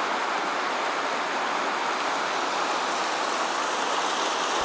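Mountain river rushing over rocks in whitewater rapids: a steady, even rush of water.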